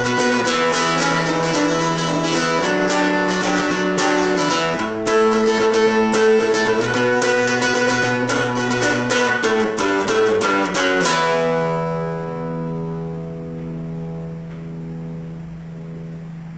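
Acoustic guitar played solo, picked and strummed through a run of chords; about eleven seconds in a final chord is struck and left to ring, fading away slowly.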